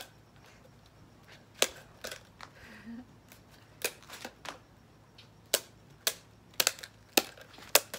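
Paper balls of homemade kendama toys being tapped up into the air with plastic water bottles: about a dozen sharp, irregular taps, some close together, from two players.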